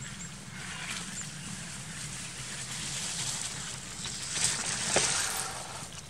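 Semi-fat mountain bike's 27.5 x 3 tyres rolling over dry fallen leaves, a crackling rustle that grows louder as the bike comes close and is loudest about five seconds in.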